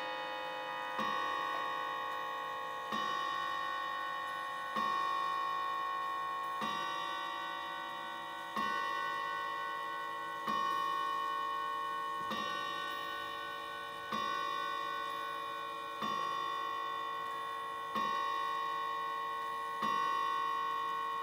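Bawo & Dotter Peerless mantel clock striking the hour on a coiled gong, eleven even strokes about two seconds apart. Each stroke is the same ringing tone, which dies away slowly and is still sounding as the next one lands. These are strokes of the twelve o'clock strike.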